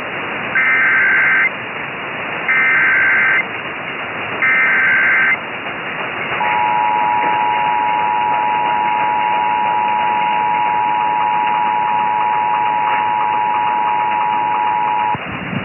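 Emergency Alert System tones over radio static: three short bursts of screechy SAME header data, each about a second long and two seconds apart, then the two-tone EAS attention signal held steady for about nine seconds, marking the start of an AMBER Alert broadcast.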